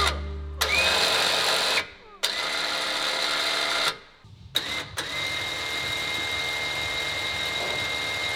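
Warn AXON 55-S electric winch spooling in its cable in three short runs. Each run starts with a rising whine that levels off into a steady motor hum. The last run is the longest, about three seconds.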